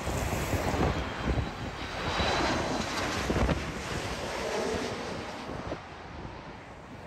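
Jet airliner on approach to land passing overhead, its engine rush swelling to a peak a few seconds in and then fading. Heavy wind buffets the microphone throughout.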